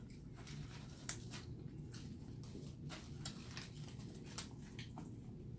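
Fresh lettuce and perilla leaves crinkling and rustling in the hands as a lettuce wrap is folded: faint, irregular crackles over a low steady hum.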